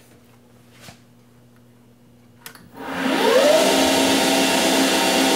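A switch clicks, then the Grizzly G0602 lathe's VFD-driven spindle motor spins up from rest in about one second on a 1-second acceleration ramp: a whine rising in pitch, then steady running at speed.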